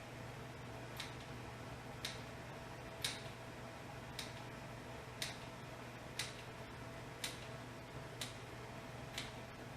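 Regular sharp clicks, about one a second, over a steady low electrical hum.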